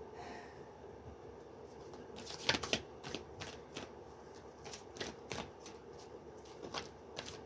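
Tarot cards being shuffled by hand: a run of irregular papery clicks and rustles that starts about two seconds in.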